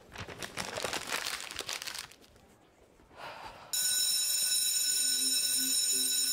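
A paper flyer crinkles and rustles in hands for about two seconds, with a short burst of crumpling just after three seconds. Just under four seconds in an electric school bell suddenly starts ringing, a steady ring held to the end, with low music notes entering under it about a second later.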